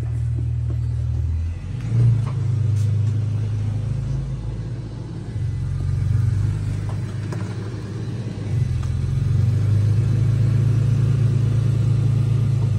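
A motor vehicle engine idling with a low, steady rumble that swells and eases a few times and is loudest in the second half.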